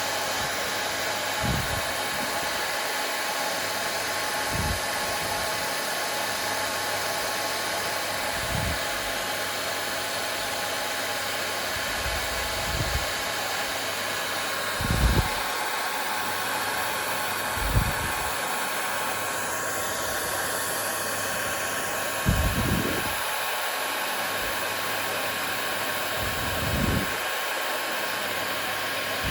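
Hair dryer running steadily: an even blowing hiss with a faint steady whine in it. Short low thumps come every few seconds at irregular intervals.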